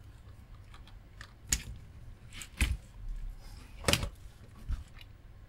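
Small tools clicking and tapping against a circuit board and bench while desoldering with flux-coated solder braid: four sharper clicks spread over a few seconds among fainter ticks.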